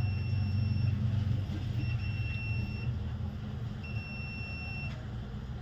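Hot air rework station blowing at low airflow to desolder a phone's charging socket, a steady low hum. Over it, a high-pitched beep about a second long repeats three times, about a second apart.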